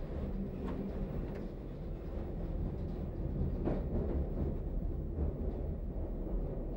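London Underground 1962 stock tube train running along a station platform in tunnel, a steady low rumble with a few faint clicks.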